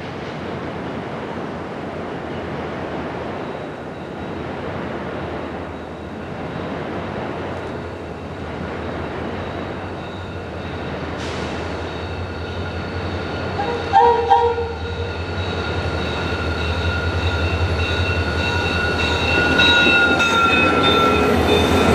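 Rocky Mountaineer passenger train led by a diesel locomotive approaching and passing close by: engine rumble and wheel noise growing louder. A short horn blast sounds about two-thirds of the way through, and a thin high wheel squeal builds in the second half as the train rounds the curve.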